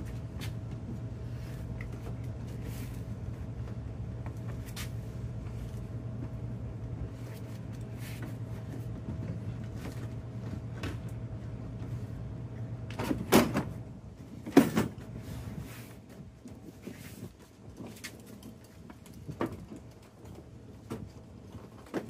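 Clicks and clunks of hard plastic from hands working the inside door panel and door handle of a Ford F-150, with two loud clunks about a second and a half apart midway. A steady low hum sits underneath and fades out soon after the clunks.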